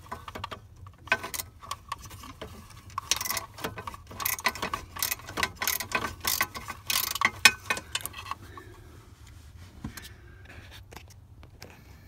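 Hand ratchet clicking in quick runs as a 10 mm socket on an extension backs out bolts under a steering column; the clicking thins out to a few faint ticks about eight seconds in.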